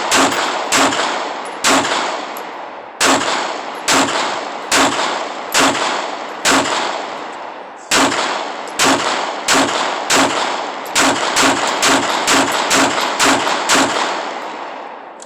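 Gunfire: a long string of shots, some in quick bursts and some spaced out, each ringing on in a long echo before the next. The firing stops about a second before the end, and the last echo fades away.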